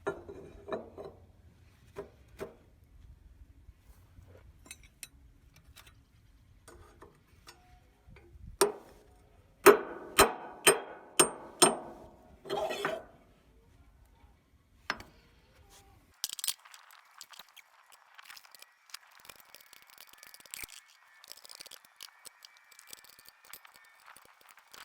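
Metal clinking and knocking from hand tools and metal parts, with a run of about six sharp ringing metallic strikes, roughly two a second, near the middle, then quieter scraping and clicking.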